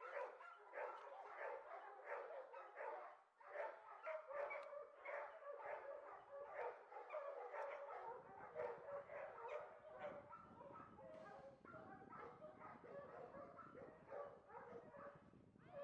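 Dogs barking and yapping over and over in quick succession, faint.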